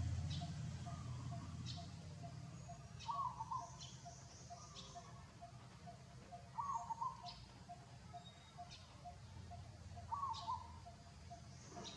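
Birds calling outdoors: a short warbling call repeated about every three and a half seconds, with scattered sharp high chirps and a steady faint pulsing note underneath. A low rumble fades out in the first couple of seconds.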